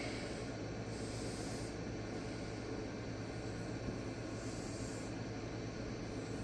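Ozark Trail D2 steel knife blade drawn across a fine 5-micron sharpening stone in repeated freehand passes: a soft scraping hiss that comes and goes with each stroke.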